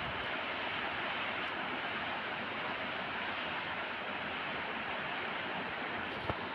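A steady rushing noise with no distinct events, and a single small click near the end.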